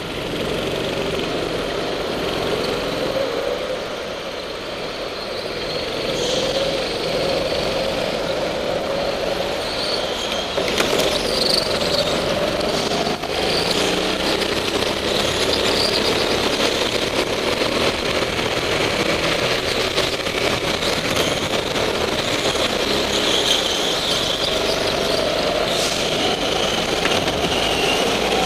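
Go-kart engines running under load from onboard a rental kart, the engine note rising and falling as the kart accelerates and lifts off through the corners, with other karts running close by.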